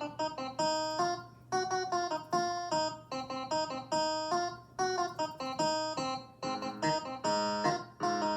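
Roland FP-30 digital piano playing a plucked, guitar-like voice: short, quickly decaying notes and chords in a steady rhythmic pattern under a melody.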